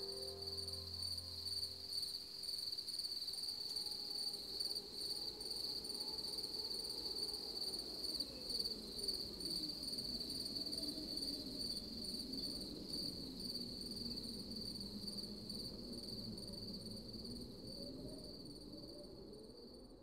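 Crickets chirping in a continuous high, fast-pulsing trill, fading out near the end. Under it a faint low tone slowly wavers up and down.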